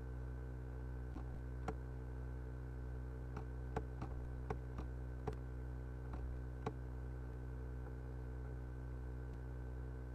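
Scattered light clicks and ticks from the pen input while words are handwritten on screen, about ten of them in the first seven seconds, over a steady low electrical hum.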